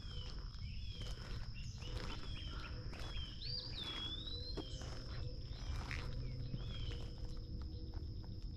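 Outdoor morning ambience of birds and insects. A steady high insect drone runs throughout, birds chirp with short falling notes, and one bird gives a clear whistled call that rises and falls about three and a half seconds in, over a low rumble.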